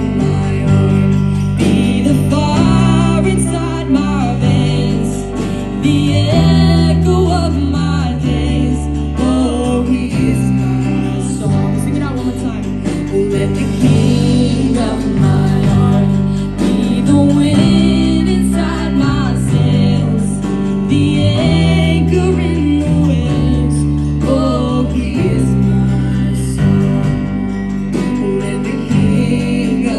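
Live band performing a worship song: two female singers on microphones over electric guitars, bass guitar, acoustic guitar and keyboard, with a steady beat and bass.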